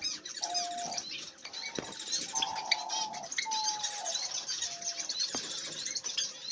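Small cage birds chirping and twittering, with short steady whistle-like notes repeated about once a second. Two light knocks come partway through.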